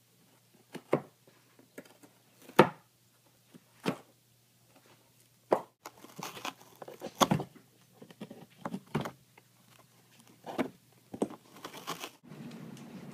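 A cat chewing and tearing at the edge of a cardboard box: irregular sharp crunches and ripping of cardboard, coming in clusters.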